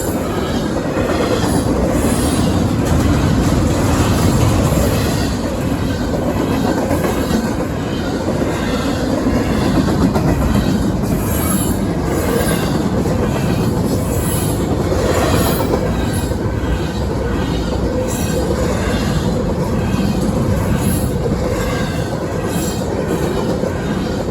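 Norfolk Southern intermodal freight train cars rolling past at speed, their wheels clicking over the rail joints in a steady repeating rhythm with a faint flange squeal.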